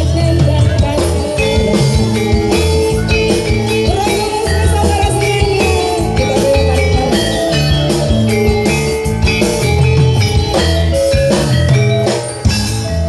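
Live jaranan music from a Javanese gamelan-style ensemble: metal mallet instruments ringing out a steady, repeating beat over drums, with a melody line that bends in pitch.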